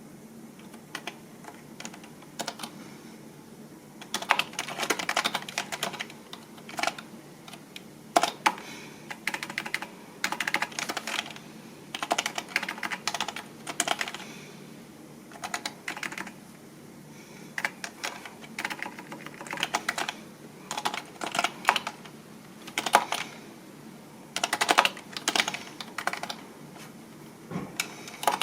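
Typing on a computer keyboard: rapid runs of key clicks in bursts of a second or two, with short pauses between them.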